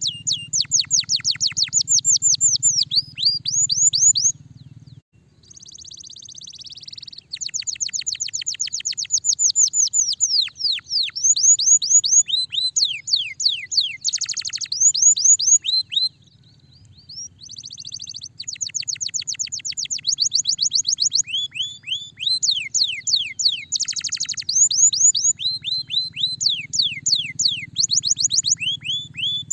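Domestic canary singing in long rolling trills of rapid downward-sweeping notes, many to the second, changing from one trill to the next. About five seconds in the song drops to a softer warble for two seconds, and there is a brief lull around sixteen seconds.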